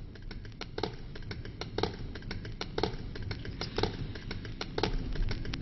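Light irregular clicking and tapping, with a stronger click about once a second, over a steady low hum.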